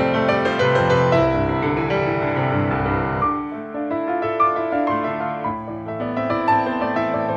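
Background piano music, slow and gentle; the lower notes drop away about three seconds in, leaving a lighter upper line.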